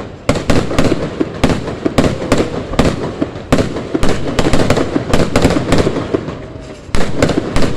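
Fireworks going off in rapid, irregular succession: many sharp bangs a second over continuous crackling.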